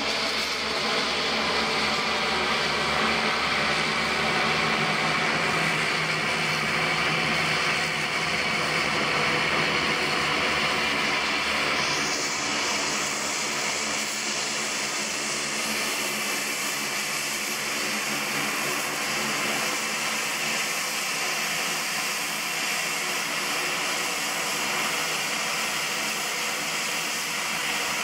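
Dornier 228 twin-turboprop taxiing, its two Garrett TPE331 engines and propellers running at low power as a steady drone of many tones over a hiss. About twelve seconds in, the hiss grows brighter and higher.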